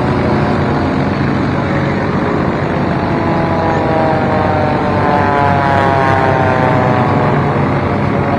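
Formula One air racers' small four-cylinder Continental O-200 engines running hard as the planes race past, the pitch falling as each one goes by.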